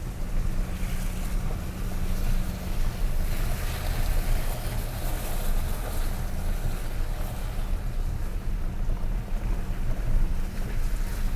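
Wind buffeting the microphone outdoors, a continuous rushing noise that swells and eases, over a steady low hum.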